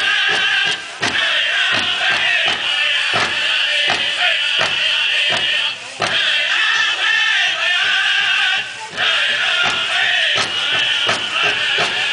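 Powwow drum group playing a jingle dress dance song: several voices sing high over a steady beat on a big drum. The singing breaks off briefly three times, between phrases, while the drumbeat carries on.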